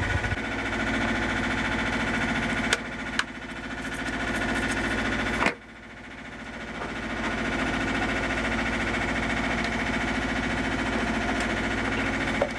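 Sailboat's inboard engine running steadily, heard from inside the cabin as a low drone, with a few sharp clicks and knocks. About five and a half seconds in the sound drops suddenly, then builds back up over a few seconds.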